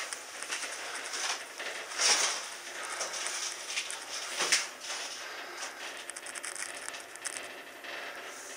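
Gondola lift cabin rattling and clicking as it rides the cable, a steady patter of small knocks with a couple of louder clunks about two seconds in and again past the middle.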